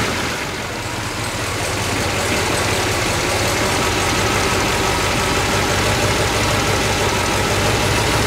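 The 1965 Chevrolet Impala SS's 396 cubic-inch V8 is idling steadily and smooth, just after being started.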